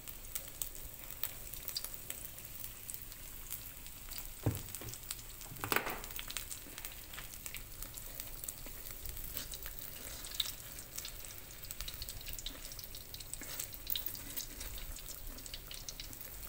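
Strips of food frying in hot oil in an electric skillet: a steady sizzle full of small crackles and pops, with two louder knocks about four and a half and six seconds in.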